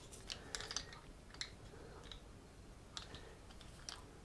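Faint, irregular small clicks and ticks of a screwdriver bit and small screws being handled and fitted together.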